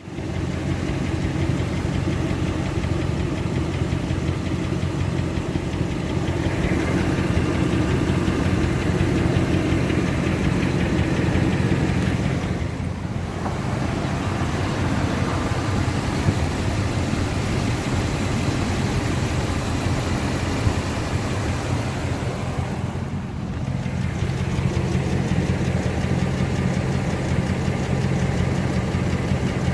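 2004 Dodge Ram 1500 pickup's engine idling steadily, a noise the owner questions as bad valve lifters.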